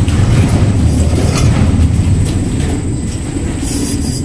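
Sliding wire-mesh loft door running on bearing rollers along its tubular steel track: a steady low rumble with a few light clicks, easing off after about three seconds.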